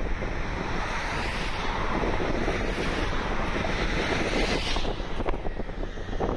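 Wind buffeting the microphone, a low rumbling rush, with a broader rushing noise swelling through the middle.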